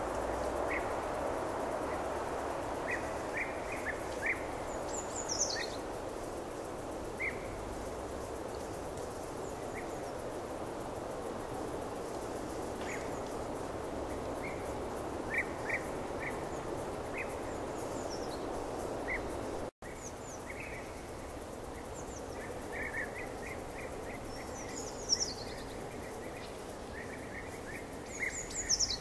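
Outdoor ambience: a steady rushing noise with small birds chirping, short calls plus several quick falling whistles. The sound cuts out for an instant about two-thirds of the way through.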